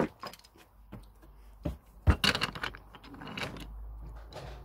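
Scattered clicks and knocks of toy trains and track pieces being handled, with a sharp knock about two seconds in, and a low rumble building in the second half.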